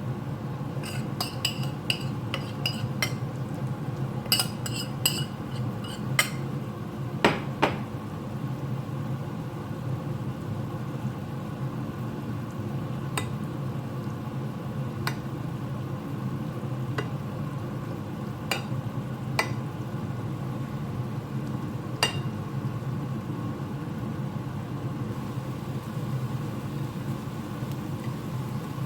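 Potato omelette frying in a pan on low heat with a steady sizzle. A metal utensil clinks against the pan in quick clusters and scrapes once about seven seconds in, then taps only now and then.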